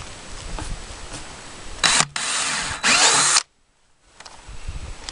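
Cordless drill spinning a bit through the side of a plastic bucket in three quick bursts starting about two seconds in, the last one stopping abruptly as the hole breaks through. Wind buffets the microphone underneath.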